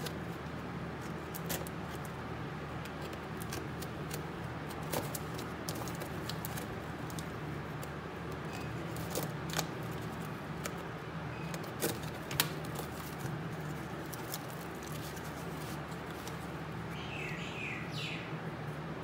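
A craft knife slitting packing tape on a cardboard box, then the box flaps being pulled open and handled: scattered short clicks, scrapes and crinkles over a steady low background hum.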